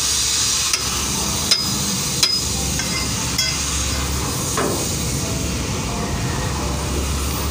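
Four sharp metallic clinks, the first three about three quarters of a second apart, from a long steel tyre bar knocking against a container truck's wheel rim during manual tyre removal. A steady low rumble runs underneath.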